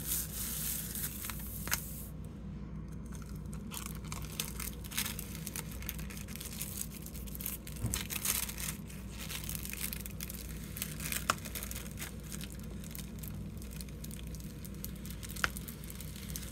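Thin artist tissue paper rustling and crinkling softly as hands rub and press it down over an inked gel printing plate, with scattered faint ticks and a steady low hum underneath.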